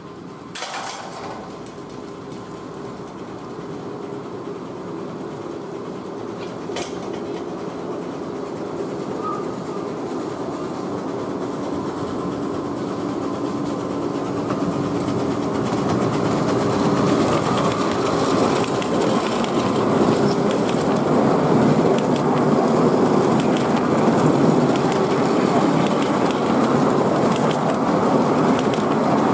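Miniature-gauge steam locomotive hauling a train of passenger coaches, approaching along the track and growing steadily louder until it is running close by near the end. A sharp click comes about half a second in.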